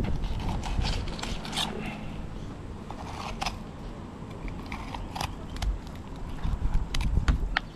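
Fillet knife cutting a mangrove jack's fillet away from the rib bones: irregular sharp clicks and short scrapes as the blade runs over the bones and touches the plastic cutting board.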